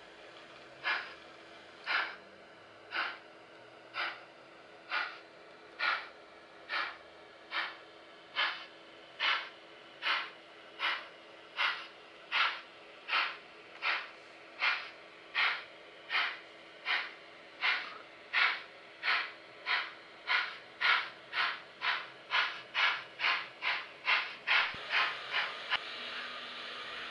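Steam-locomotive chuffs from a model locomotive's DCC sound decoder, about one a second at first and quickening to two or three a second near the end as the engine gathers speed.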